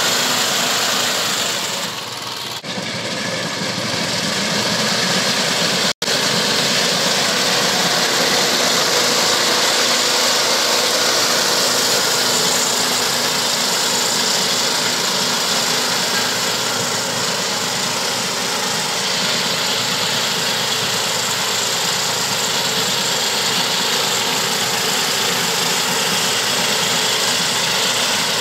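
Walk-behind rice reaper's small air-cooled petrol engine running steadily as the machine cuts standing rice with its cutter bar. The sound dips briefly about two seconds in and breaks off for an instant near six seconds.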